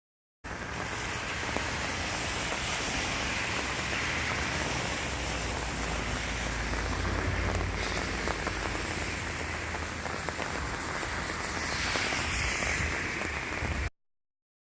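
Rain falling steadily, a dense hiss of many small drop impacts with a low rumble underneath, likely from the approaching typhoon. It starts and cuts off abruptly.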